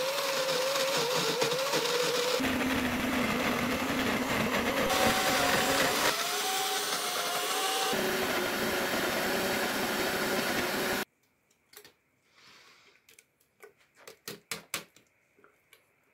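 Electric countertop blender running, puréeing chickpeas, spices and oil, its motor whine jumping abruptly in pitch three times. It cuts off sharply about eleven seconds in, followed by a few light knocks and scrapes as the thick purée is worked out of the jar.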